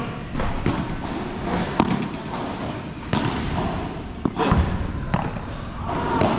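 Padel rally: the ball being struck by rackets and bouncing off the court and walls, heard as a string of sharp knocks and thuds at irregular intervals, often about a second apart.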